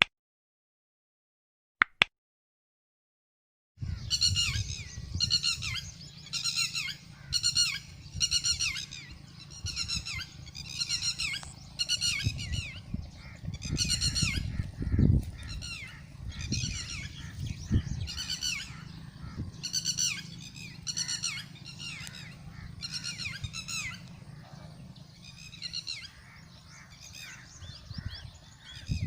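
Birds calling over and over, high wavering calls about one to two a second, starting about four seconds in after a brief click. A low rumble runs underneath.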